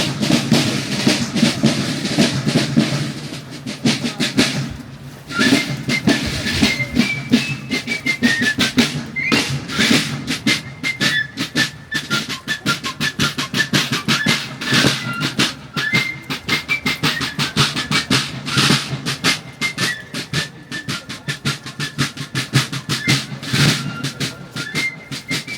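Military marching music: snare drums beating a rapid, steady march rhythm, joined about five seconds in by a high, thin fife melody.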